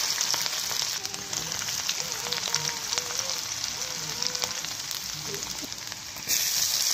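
Chopped vegetables sizzling and crackling in hot oil in a kadhai, a steady spitting hiss full of small pops. The sizzle grows louder about six seconds in.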